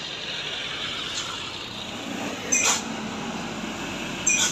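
A truck running through a sharp bend, its engine rumble building about two seconds in. Over it come two short, loud, high-pitched squeals, nearly two seconds apart.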